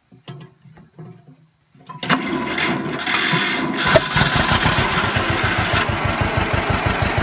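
John Deere 520's two-cylinder engine started cold after sitting about a month: it turns over for about two seconds, catches with a sharp pop about four seconds in, and settles into a steady run of evenly spaced firing pulses.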